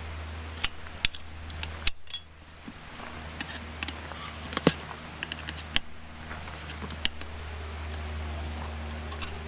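Irregular clicks and clinks as tire slips are set in between the tire and the rim, resting against the wheel's spokes, over a steady low hum.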